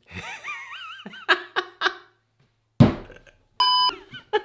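A man laughing, a wavering 'oh' followed by a few short bursts. About three seconds in there is a thump, then a short electronic beep that starts and stops abruptly.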